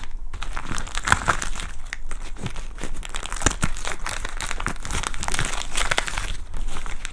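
Gift wrapping crinkling and tearing as a small package is unwrapped by hand: a steady, irregular run of rustles and crackles.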